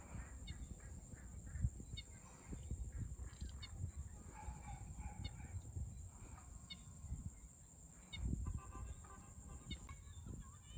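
Domestic fowl calling, with one longer call near the end, among repeated short high bird chirps and a steady high insect drone. Under it runs a low rumble with a couple of thumps.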